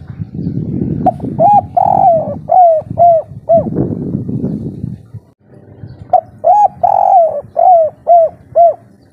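Spotted dove cooing: two phrases of six short, arched coo notes each, the third note of each phrase drawn out longer, the first phrase starting about a second in and the second about six seconds in. A low rumbling noise sits under the first phrase.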